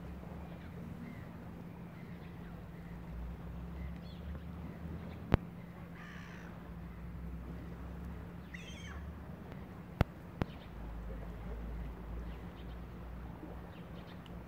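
Birds calling in two short bursts, about six seconds in and again near nine seconds, over a steady low hum. Three sharp clicks stand out as the loudest sounds, one about five seconds in and two close together around ten seconds.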